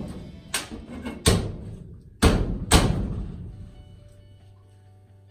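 Music: four loud percussive hits in the first three seconds, each ringing out, followed by a few faint held notes fading away.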